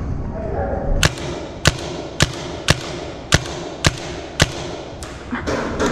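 Paintball marker firing a string of single shots, about seven sharp cracks roughly two a second, starting about a second in.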